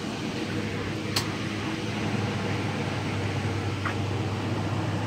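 Ford F-150 pickup engine idling with a steady hum, and one sharp click about a second in.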